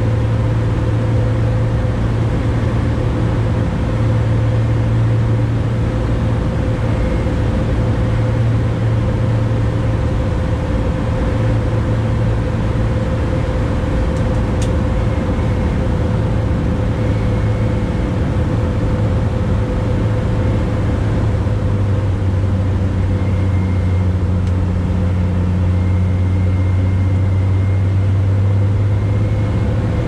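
Cessna 180's six-cylinder piston engine and propeller heard inside the cockpit, a loud steady drone on final approach; its pitch drops slightly about two-thirds of the way through as power eases off.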